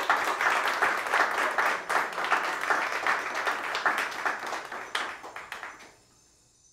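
Small audience applauding by hand, a dense patter of claps that thins out and stops about six seconds in.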